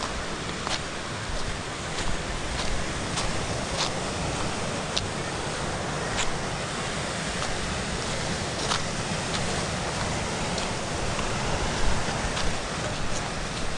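Surf washing over a rocky shore, with wind rumbling on the microphone. Footsteps crunch on a stony gravel path, about one step every half second to a second.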